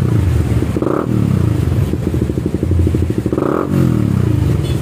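Suzuki GSX-R150's single-cylinder engine running through its gutted stock muffler at a fairly high idle, blipped twice on the throttle, about a second in and again about three and a half seconds in, each rev dropping back to idle.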